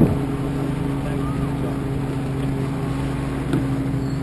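Tender motorboat's engine idling at a steady pitch, with a couple of brief knocks.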